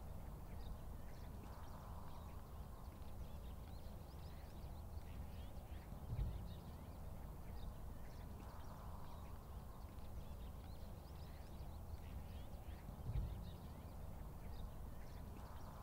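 Faint open-field ambience: a steady low rumble with scattered faint bird chirps, and a soft low thud twice, about seven seconds apart.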